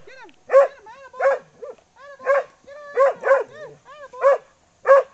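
Collie barking excitedly at sheep, about seven sharp barks in quick succession with short high yips between them.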